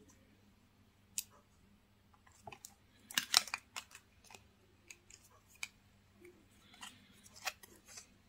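Light clicks and rustles from handling a watch on a tan leather strap with a steel buckle and a plastic price tag on a string, with the loudest cluster of clicks about three seconds in.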